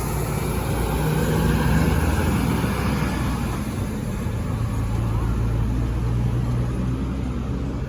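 Large bus diesel engine running as a bus comes in close by, loudest about two seconds in, then settling to a steady low hum, with a high hiss over it.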